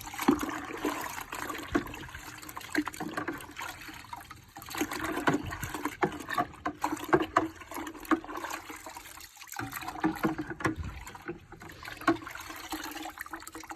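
Water sloshing and trickling in a bucket as a seat belt is washed by hand, with many small irregular splashes.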